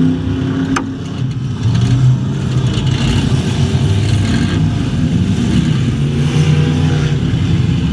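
Race car engine heard from inside the stripped cockpit, running under throttle with its pitch rising and falling. It eases off about a second in and comes back on the throttle about two seconds in. A single sharp click comes just under a second in.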